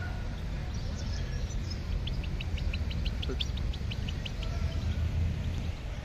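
Caged finch chirping: a run of short, quick high notes, about four a second, over a steady low rumble.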